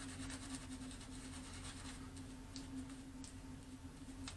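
Quiet room tone: a steady low hum under a faint hiss, with a few faint soft ticks in the second half.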